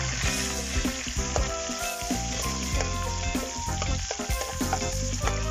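Chopped onions and garlic sizzling in hot fat in a wok, stirred and scraped around the pan with a metal spatula.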